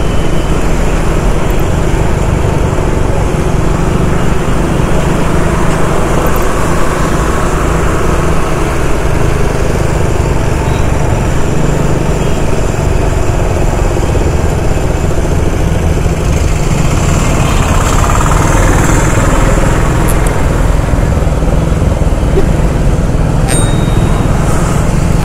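Motorcycle riding through city traffic: the engine running steadily under a dense rush of road and traffic noise.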